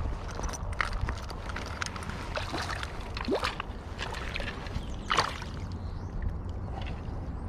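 River water sloshing and splashing close to the microphone over a low, steady rumble of current and wind, with two sharper splashes a little past halfway, the second the loudest.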